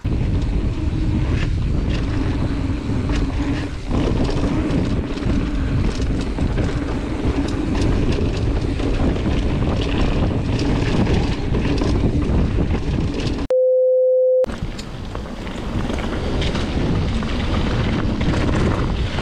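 Mountain bike riding fast downhill on a dirt trail, filmed from the bike: wind rushing over the camera microphone and the tyres and frame rattling over the ground. About two-thirds of the way through, the riding noise cuts out for a steady, one-second test-tone beep, then the riding resumes.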